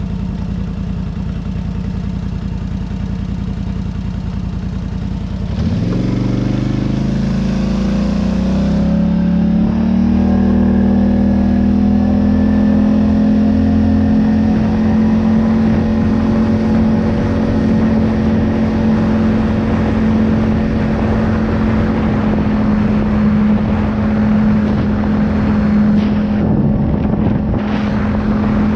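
A vehicle engine idles steadily, then is revved up about six seconds in and held at a steady higher engine speed as the vehicle drives on.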